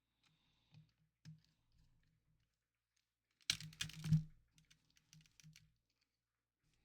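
Light clicks and taps of small plastic and metal console parts being handled and fitted during reassembly: a few scattered clicks, then a dense run of louder clicks about three and a half seconds in, followed by a handful of separate ones.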